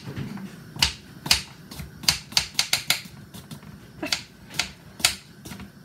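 Kitchen knife slicing through a cucumber, the blade knocking on a wooden cutting board in about a dozen sharp, unevenly spaced taps.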